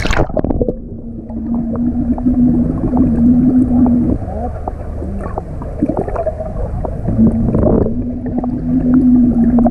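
Breath-out bubbles underwater, heard through a submerged camera: muffled bubbling and small pops, with a steady low hum held for about three seconds, twice.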